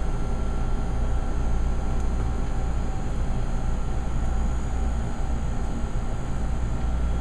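Commercial planetary mixer running steadily, its dough hook kneading stollen dough; a constant low motor hum.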